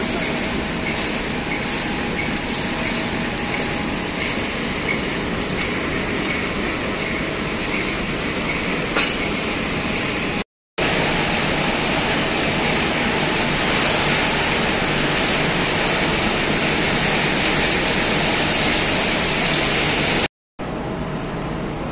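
Oxy-fuel gas torch burning with a steady, loud hiss while heating a rotary valve's shaft bearing. The sound drops out briefly twice. After the second break, the torch flame is cutting steel plate, a little quieter.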